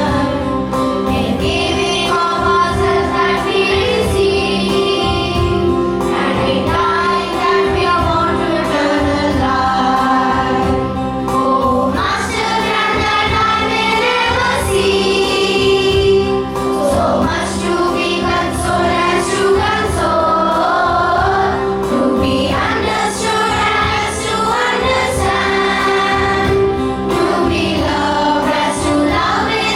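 A choir of children singing a morning prayer song with instrumental accompaniment and a steady beat.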